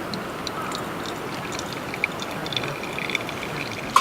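Steady rush of water, with scattered small high clicks.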